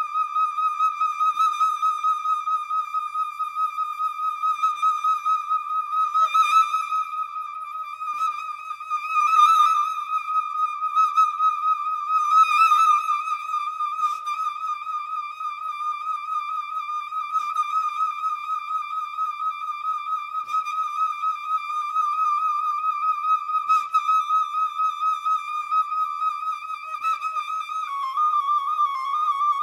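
Solo concert flute holding one high note almost without a break, with a fast wavering, pulsing flutter and a few brief accents. It is sustained with no pause for breath, as in circular breathing, and steps down to a slightly lower note near the end.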